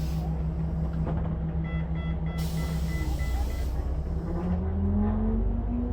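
Volvo bus engine running with a steady hum, then rising steadily in pitch over the last couple of seconds as it pulls away. A burst of air hiss comes at the start and another about halfway through. Over the second hiss there is a row of short evenly spaced beeps, the sound of a door-closing warning.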